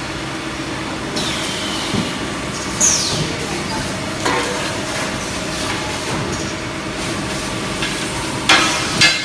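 Cement roof tile pressing machines running with a steady hum, with sharp metal clanks of tile pallets and moulds being handled. A brief falling squeal about three seconds in, and two louder clatters near the end.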